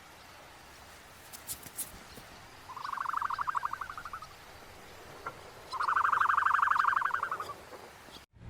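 An animal's call: two rapid pulsing trills, each about a second and a half long and a couple of seconds apart, with a few faint clicks before the first.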